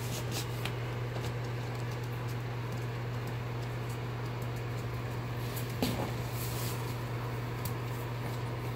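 Husky puppies scuffling and wrestling on a laminate floor: light clicks and scuffs of paws and claws, with one brief louder sound about six seconds in. Under them runs a steady low hum.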